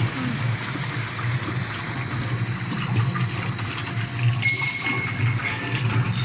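Horizontal ribbon mixer running at high speed with water in its barrel: a steady motor hum under the churning and sloshing of water stirred by the ribbon agitator. A high steady whine joins about four and a half seconds in.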